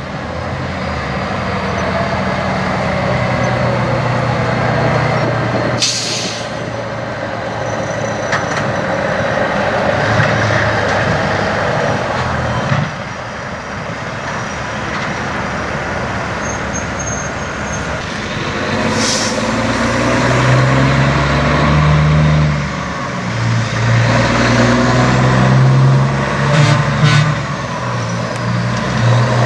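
A semi truck's diesel engine running as the rig moves slowly. Short air-brake hisses come about six seconds in and again near nineteen seconds, with a couple of smaller ones near the end.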